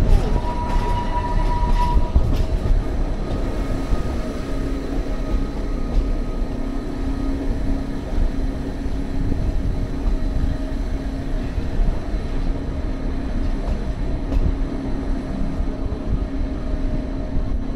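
Electric mountain train running downhill: a steady low rumble of the carriage on the track, with a steady hum and a higher whine in the first several seconds.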